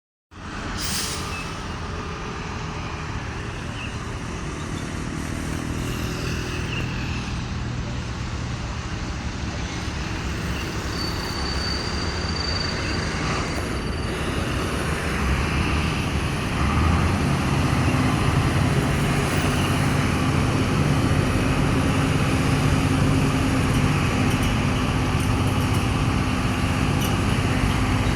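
Heavy diesel truck engine running with a steady low drone, growing gradually louder and stepping up in level and pitch about sixteen seconds in.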